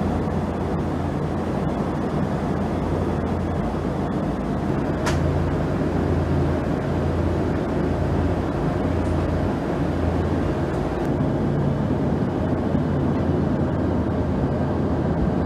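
Steady in-flight cabin noise of a VC10 tanker aircraft: engine and airflow rush with a low drone underneath. A single short click about five seconds in.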